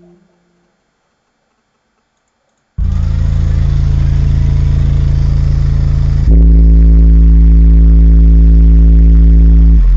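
Near silence for about three seconds, then loud, deep synthesized bass notes start suddenly and are held steady, changing to a lower, heavier note about halfway through and again at the end.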